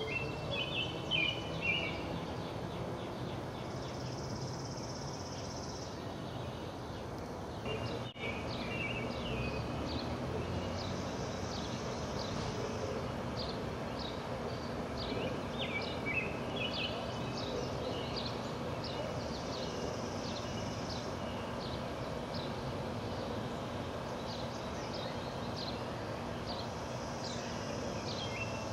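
Outdoor ambience: a steady rushing noise with songbirds chirping in short repeated phrases. A higher buzzing trill lasting about two seconds comes back every seven or eight seconds.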